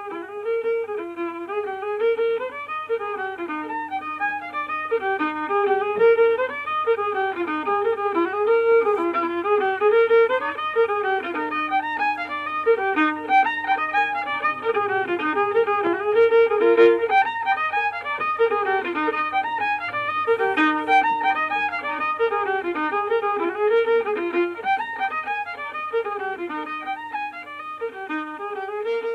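Fiddle playing a tune as background music, a single melody line moving in quick notes.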